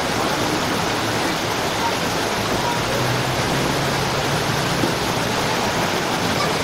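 Heavy typhoon rain and floodwater: a steady, even rushing hiss that does not let up.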